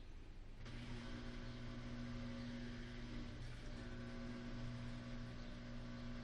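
Samsung WD136 front-loading washer-dryer running its wash cycle: after a short pause the drum motor starts up again less than a second in, then turns steadily with a low hum and a rushing noise over it.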